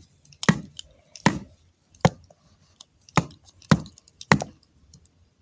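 A stick whacking a remote control, six sharp knocks spaced roughly half a second to a second apart.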